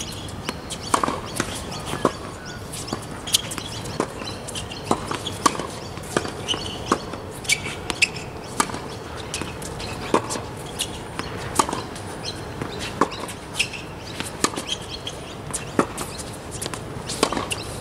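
Tennis ball struck with a racket and bouncing on a hard court in a baseline rally: a steady series of sharp hits, the loudest about one every second or so.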